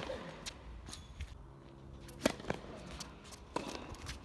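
Tennis ball being struck by rackets and bouncing on a hard court during a rally: a series of sharp pops and thuds, the loudest about two seconds in.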